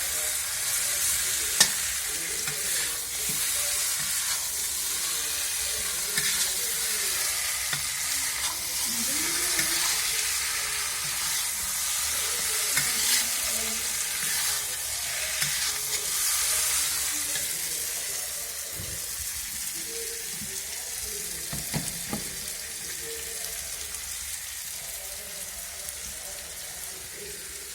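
Kadhai chicken sizzling as it fries in the pan while being stirred, with occasional sharp clicks and scrapes against the pan. The sizzle grows quieter in the last third.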